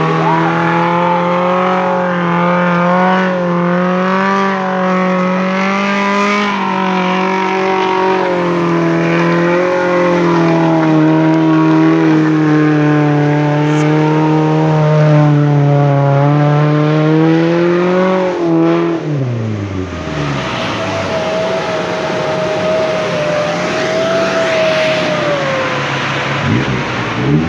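An off-road SUV's engine held at high revs, the pitch wavering up and down as it works through mud. About eighteen seconds in the revs drop sharply, leaving a thinner, higher steady whine.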